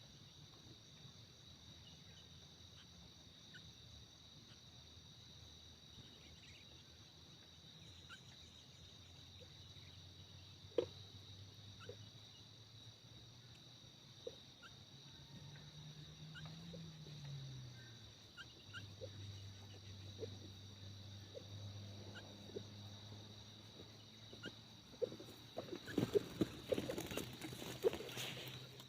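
Steady high-pitched drone of crickets, with a faint low motor hum that rises and falls about halfway through and a few scattered ticks. Near the end, closer rustling and clicking noises grow louder.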